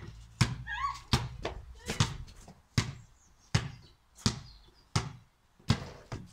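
A basketball being bounced (dribbled) steadily: eight bounces, a little under a second apart.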